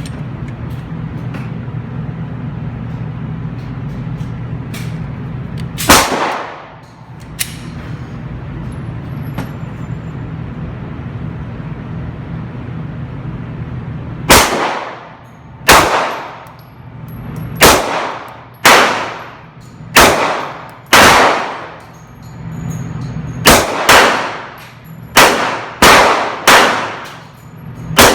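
Handgun shots: a single shot about six seconds in, then, after a pause, a string of about a dozen shots, mostly about a second apart, each followed by a short ringing echo. A steady low hum runs under the quieter stretch before the string.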